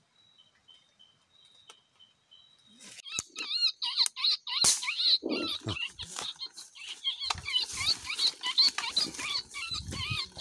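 Rapid high-pitched squeaking from a rat, starting about three seconds in and going on in quick runs, mixed with knocks and rustling through wet vegetation. A faint steady insect chirping is heard before the squeaks begin.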